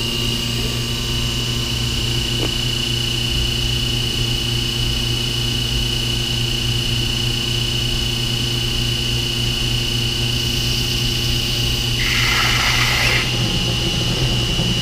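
Dropmaster DM12 vacuum pump running steadily with a constant low hum and a high whine. About twelve seconds in comes a hiss lasting about a second: air being sucked in as the sprinkler head is unscrewed from the drained pipe under vacuum.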